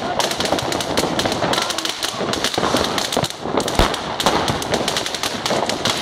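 Many firecrackers and fireworks going off at once, a dense, continuous run of bangs and crackles, with one heavier bang about two-thirds of the way through.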